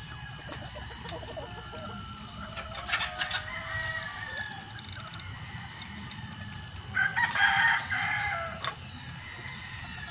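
Albany–Yellow Leg Hatch gamefowl hens clucking as they forage. A short call comes about three seconds in. A louder rooster crow of under two seconds follows about seven seconds in and is the loudest sound.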